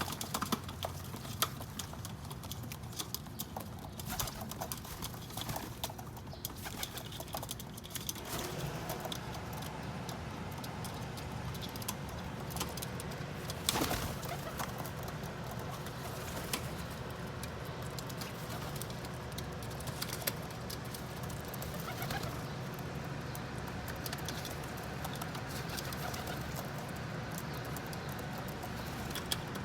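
Feral pigeons cooing, with many sharp ticks that are thickest in the first several seconds, over a steady low hum. One louder knock comes about halfway through.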